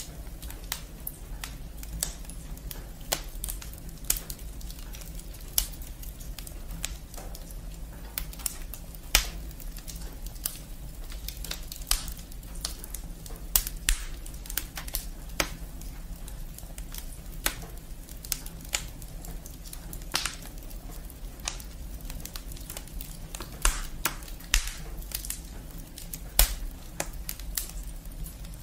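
Wood fire of logs and twigs burning in a fireplace, crackling with irregular sharp pops, a few of them much louder than the rest.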